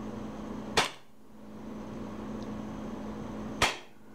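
Western Arms 1911 gas-blowback airsoft pistol firing two single shots about three seconds apart, each a sharp report with a short tail.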